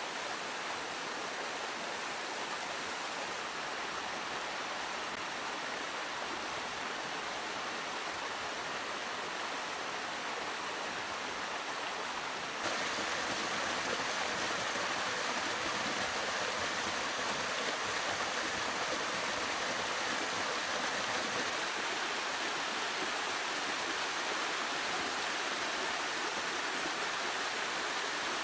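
Small forest stream cascading over rocks in a steady rush of water. The rushing gets suddenly louder a little before halfway through.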